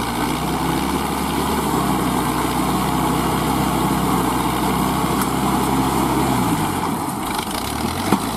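Kubota ZL3001 tractor's four-cylinder diesel engine running steadily under load; about two-thirds of the way through its note drops as the engine slows, and a short sharp click comes near the end.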